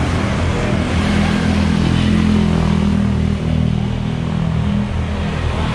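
A motor vehicle engine running steadily with a low hum, over street traffic noise.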